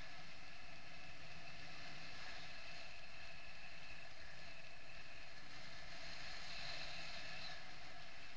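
Steady rush of wind over the microphone of a camera on a paraglider in flight, with a few faint steady tones in it. It grows slightly brighter about six to seven seconds in.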